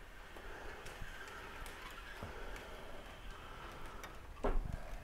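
Windscreen cutting wire being drawn back and forth through the bonding of a van door's fixed glass: a faint scraping with a few light ticks, and a brief louder noise about four and a half seconds in.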